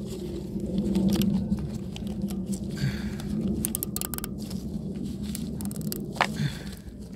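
Scattered small clicks and rustles of hands working on a fuel injector's wiring connector, over a steady low hum.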